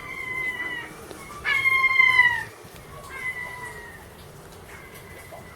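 An animal's drawn-out, meow-like cries: three calls, each holding steady and then falling slightly in pitch, the second one the loudest, with a faint fourth near the end.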